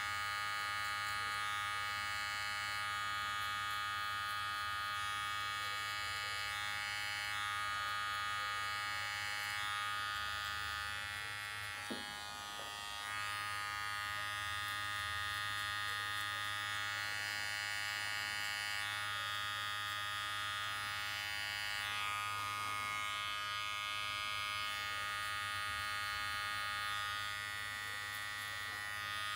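Gold cordless T-blade hair trimmer running with a steady electric buzz as it cuts close along the side of the head and around the ear, with one short tick and a brief dip in level about midway.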